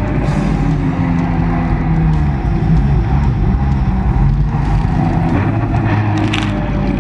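Jet ski engine running steadily under way, with background music playing over it.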